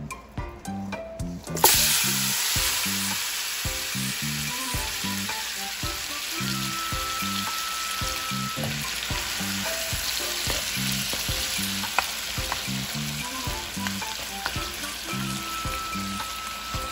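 Seasoned oxtail pieces hitting hot curried oil in a wok: a sudden loud sizzle about a second and a half in, settling into steady frying, with a wooden spoon stirring through the meat near the end. Background music with a steady beat plays underneath.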